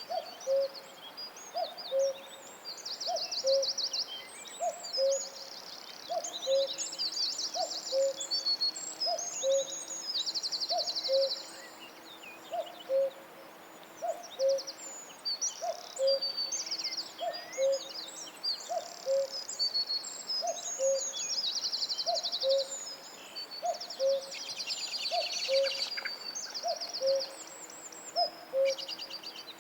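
Tropical forest bird chorus: a low hooting call repeats evenly about once every second and a bit, under many overlapping high-pitched trills and chirps.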